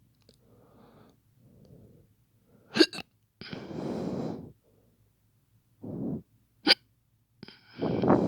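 A man's faked hiccups: two short, sharp hiccup sounds, about three seconds in and again near seven seconds, with loud breaths between them.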